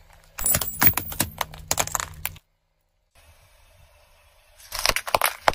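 Car tyre rolling over plastic sunglasses: a rapid run of cracks and snaps for about two seconds as the frames break. After a brief silence, a shorter cluster of crunching pops as the tyre rolls onto mesh squeeze balls near the end.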